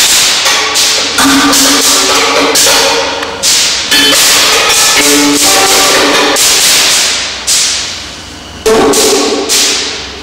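Solo violin played with hard, scratchy bow strokes: a string of loud, abrupt attacks, each with a burst of bow noise over short ringing notes, broken by brief gaps. The sound dies away around eight seconds in, then comes back with a sharp stroke.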